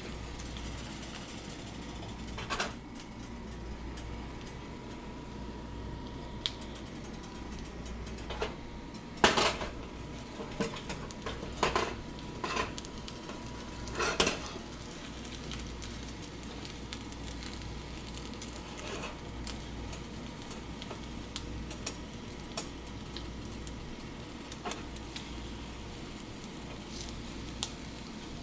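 A spatula scraping and knocking against a frying pan while an omelette is turned and folded. The knocks are scattered, with a cluster of louder scrapes and taps in the middle, over a steady low hiss from the cooking eggs.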